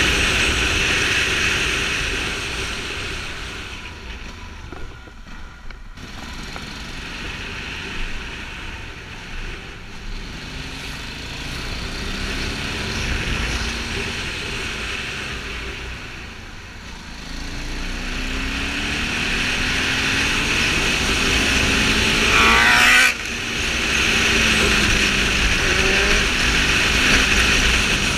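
On-board sound of a Ducati Multistrada 620's air-cooled V-twin under way, with a steady rush of wind and road noise. The engine note falls back twice as the throttle eases, then climbs sharply near the end and cuts off suddenly.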